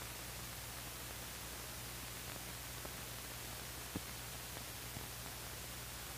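Steady hiss with a low hum underneath and a faint click about four seconds in: the background noise of an old film soundtrack.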